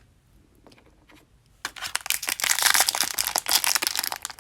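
A few faint light clicks, then about one and a half seconds in, a toy blind bag is torn open and its crinkly packaging rustled and crumpled by hand, loud and dense.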